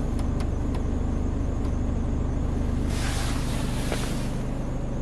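Scania R410's 13-litre straight-six diesel idling steadily, heard inside the cab. A few light clicks come in the first two seconds as the climate-control knob is turned, and a hissing rush swells briefly about three seconds in.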